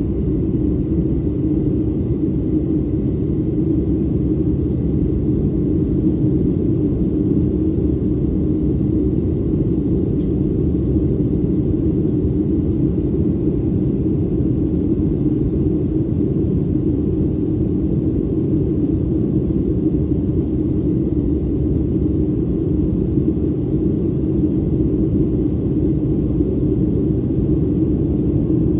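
Airliner cabin noise during the climb after take-off: a steady low roar of the engines and rushing air. A faint steady high tone sits above it.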